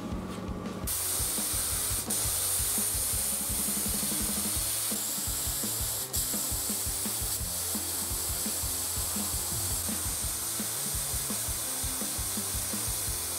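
Plasma cutter cutting along the edge of a steel hull plate: a steady, high hiss that starts about a second in, with two brief breaks.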